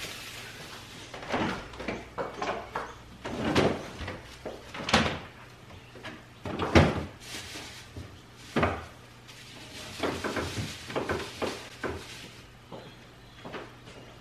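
Groceries being put away in a French-door refrigerator: the doors are opened and plastic-bagged food is set down on the shelves. It comes as a string of knocks and thumps, the loudest about seven seconds in, with plastic rustling and a low steady hum underneath.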